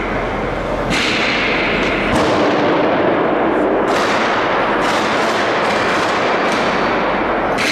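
Gunfire echoing in a large, reverberant space: about six sharp reports, each with a long trailing echo, over a continuous loud din.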